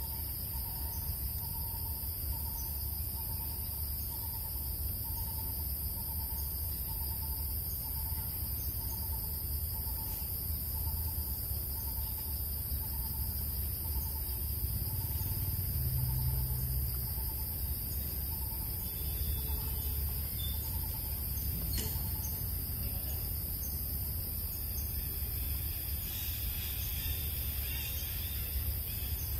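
Forest ambience: a steady high insect drone, with a faint call repeating about twice a second through the first half, over a constant low rumble.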